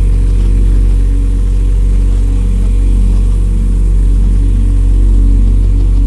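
Electronic music: a steady, loud low bass drone under muffled, low-pitched synth notes that shift in pitch, with the higher range filtered away.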